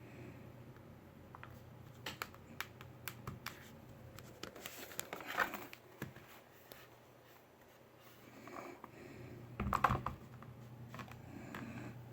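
Scattered light taps and clicks with scratching handling noise, a louder scrape about halfway through and a knock near the end.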